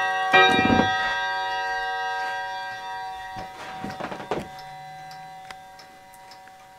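A wall clock's bell struck once by its jack figure, ringing on and slowly fading away. A few soft knocks come about three and a half to four and a half seconds in.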